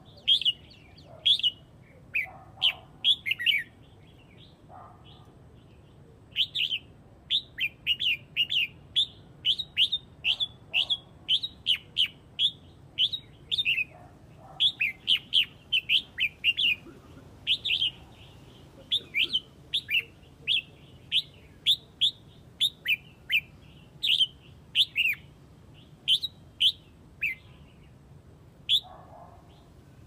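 Red-whiskered bulbul calling in quick runs of short, sharp, downward-slurred chirps, the flock call of the bird. The notes are sparse for the first few seconds and come thick and fast after a short pause.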